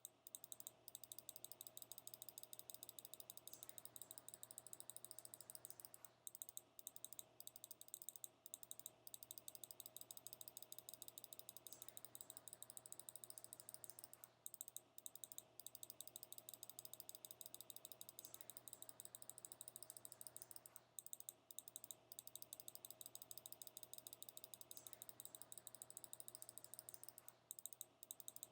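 Fast, even clicking, many small sharp clicks a second, in runs that pause briefly every few seconds, over a faint steady hum.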